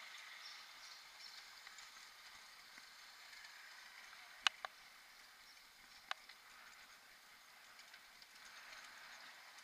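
Mountain bike rolling over cobblestones: a faint, steady rattle of tyres and bike on the stones, with a couple of sharp clicks about four and a half seconds in and another about six seconds in.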